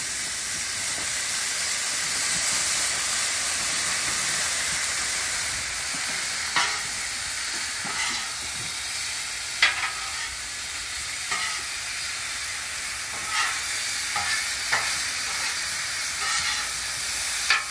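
Cubed New York strip steak sizzling in butter and soy sauce on a Blackstone flat-top griddle, a steady frying hiss. From about six seconds in, a metal spatula clicks and scrapes on the griddle steel every second or two.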